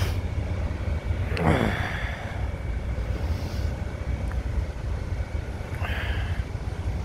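Outdoor street noise: a steady low rumble of wind on the microphone and road traffic, with a falling rush of noise, like a vehicle going past, about one and a half seconds in, and a shorter burst near the end.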